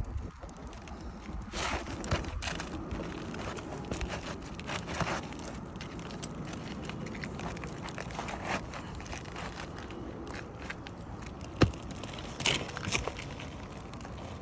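Scraping, crunching and crackling from work on roof shingles as they are pried up, with a sharp knock about two thirds of the way through.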